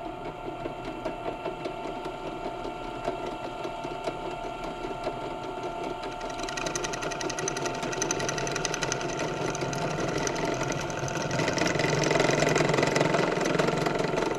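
Bench drill press motor running while the bit grinds against a small metal fitting held in pliers. The bit barely cuts: the part is a little hard to drill, too hard for the ordinary bit. The scraping gets louder about six seconds in and again near the end.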